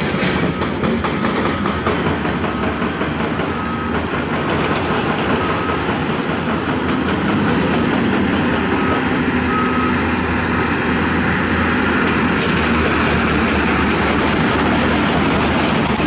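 Diesel flatbed truck driving through shallow water: engine running under a steady rush of splashing water, growing louder about halfway through as it comes closer.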